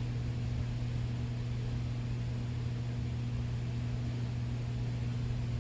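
A steady low hum with a fainter overtone above it, over an even background hiss. It holds unchanged throughout.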